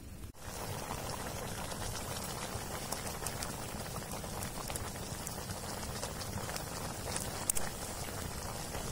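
Rat meat frying in a pot over a wood fire, sizzling and bubbling with many small pops. A louder pop comes about seven and a half seconds in.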